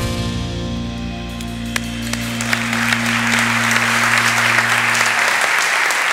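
Live band of saxophone, electric guitar, keyboard and drums ending a tune on a held final chord that rings and dies away over about five seconds. Audience applause swells in from about two seconds in and carries on after the chord has faded.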